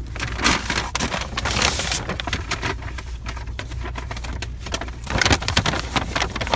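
A grocery bag rustling and crinkling as the groceries in it are handled and shifted, with small knocks of items, busiest near the end, over a steady low hum.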